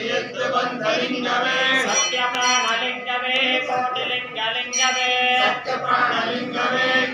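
Male priests chanting Hindu devotional mantras together in a sung, melodic style, with a few light metallic clinks about two seconds in.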